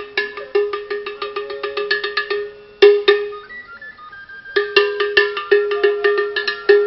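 An iron gong of the ogene type is beaten in a fast, even rhythm of about five ringing metallic strikes a second. It is the town crier's gong, calling people to hear an announcement. About three seconds in there is a single loud strike, then the beating stops for about a second and a half before it picks up again.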